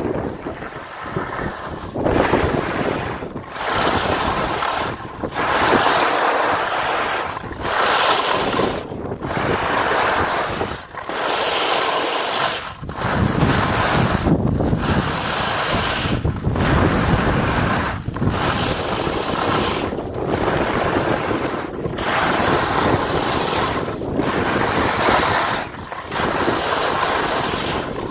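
Strong wind blowing over the microphone, a loud rushing noise that surges in pulses about a second long with brief dips between.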